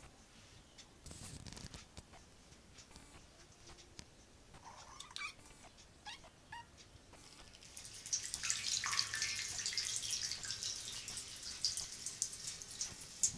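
Ginger kitten meowing a few times, short calls about five seconds in; then from about eight seconds a louder steady hiss of running water with small splashes and drips in the bathtub.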